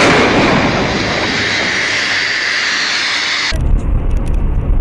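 A loud, steady rushing hiss cuts off suddenly about three and a half seconds in. It gives way to the low rumble of a car driving on a highway, heard from inside the cabin, with a few light knocks.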